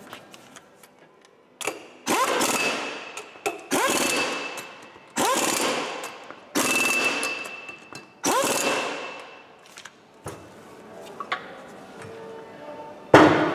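Pneumatic impact wrench hammering on a wheel hub in five short bursts of a second or so, each trailing off as the air motor winds down. A sharp metal clank near the end.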